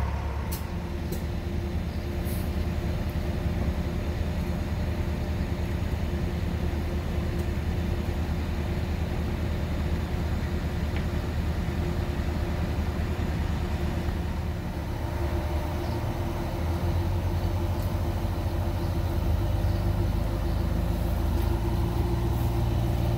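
Heavy diesel truck engine running steadily, louder from about fifteen seconds in.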